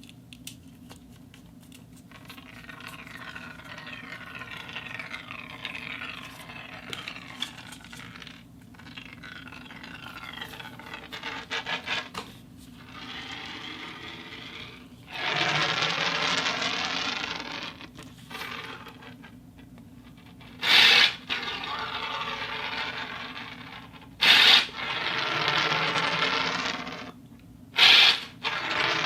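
A ball rolling and scraping along metal conduit, long stretches of rushing, rippling rolling noise that grow louder about halfway through. Three sharp, loud metallic knocks break in during the last third.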